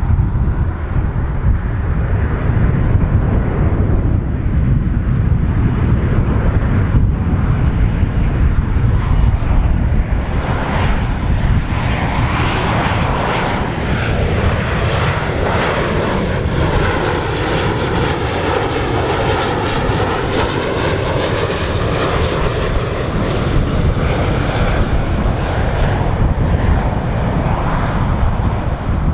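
Jet airliner on final approach passing low overhead: a loud, steady engine rumble with a whooshing sweep that falls and rises again in pitch through the middle as the aircraft goes by.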